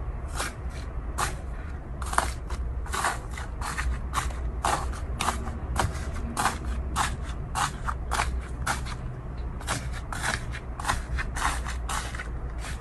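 Close-miked ASMR crackling and crunching: short, sharp crackles coming about two to three a second without a break, over a faint low rumble.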